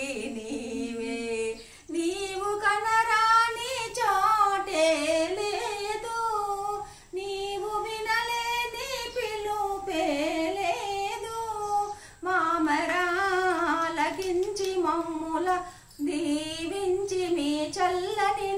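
Woman singing unaccompanied: a traditional harathi (aarti) song sung while the lamp plates are waved. Her long, wavering phrases are broken by short breaths about every four seconds.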